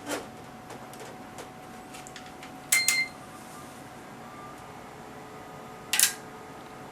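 A few sharp clicks and clinks of tools and hardware being handled on a workbench: one at the start, a quick pair with a brief metallic ring about three seconds in, and one near the end, over a faint steady electrical hum.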